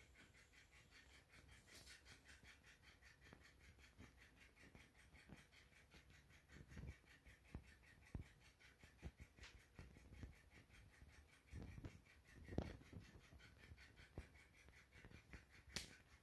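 Near silence with a few faint, scattered taps and soft knocks from a sulphur-crested cockatoo moving about on the doorway floor, over a faint steady high hum.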